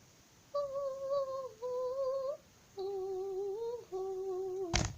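A girl humming a short tune in three phrases of held notes, with a single sharp snap just before the end.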